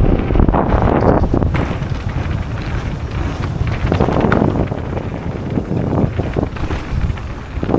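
Wind buffeting the microphone of a riding camera, a loud low rumble that surges irregularly.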